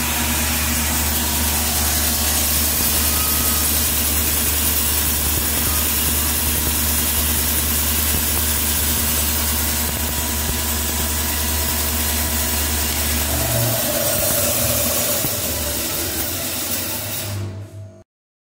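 Kolbe K 430 bandsaw running without cutting: a steady motor hum with the whir of the blade. The low hum shifts about two-thirds of the way through, and the sound sinks over the last couple of seconds before cutting off abruptly.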